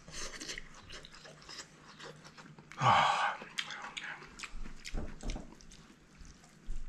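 Close-up chewing of a mouthful of spicy seafood noodles, with wet smacks and small clicks, and one louder noisy burst about three seconds in.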